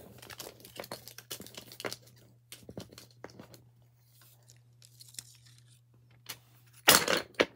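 Stiff clear plastic packaging crackling and rustling as a block of blue plastic dominoes is worked out of it, with small clicks from the dominoes. A loud burst of crackling comes near the end.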